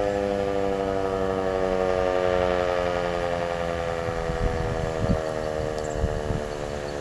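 American Signal Corporation T-121 tornado warning siren winding down after its steady alert signal, its tone sliding slowly lower in pitch as it fades. A few low thumps come about four to six seconds in.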